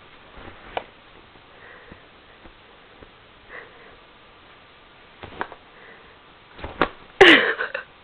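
Cats squabbling: faint taps and soft breathy puffs, then near the end a sudden loud burst with a falling cry, typical of a cat spitting and yowling in a brief scuffle.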